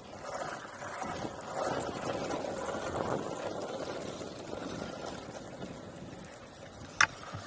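Longboard wheels rolling on rough tarmac: a steady, uneven rumble. A single sharp click sounds about seven seconds in.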